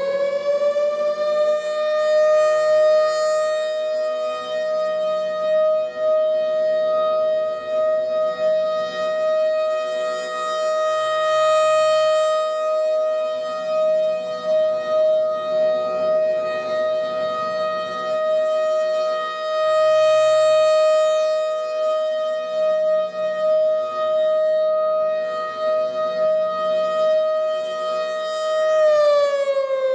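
Emergency alert siren settling onto one long, steady wailing tone rich in overtones just after the start, then starting to wind down in pitch near the end.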